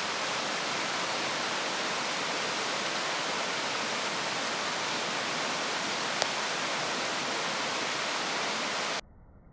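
Firewood burning hard in a YOLER cylindrical fire stand: a steady rushing hiss with one sharp crackle about six seconds in. The sound cuts off abruptly near the end.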